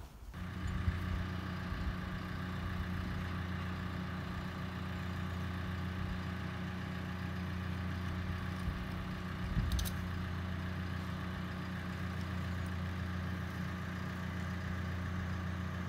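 An engine idling steadily, a low even hum. A short sharp click about ten seconds in.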